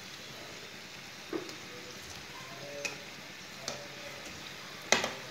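Chicken kachoris deep-frying in hot oil in a metal wok, a steady sizzle, with a few sharp clicks of a slotted metal spatula against the pan and pastries as they are turned; the loudest click comes near the end.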